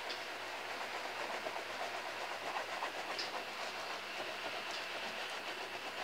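Broth for a large paella boiling hard in a wide pan: steady bubbling with scattered small pops.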